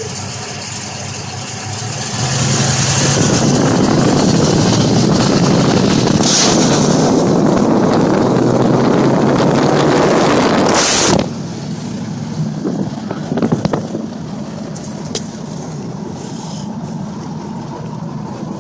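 Cars moving off in traffic: a loud, steady rush of engine and wind noise from about two seconds in, cutting off suddenly about eleven seconds in to quieter road noise inside a moving car.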